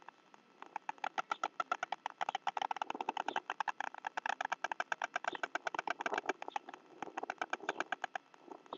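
White stork bill-clattering: a long, rapid, even rattle of bill claps, about ten a second, the adult's greeting call on arriving at the nest.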